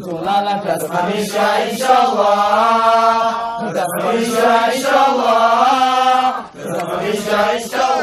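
Unaccompanied male chanting of a rousing song, sung in long, drawn-out wavering notes, with a brief pause about six and a half seconds in.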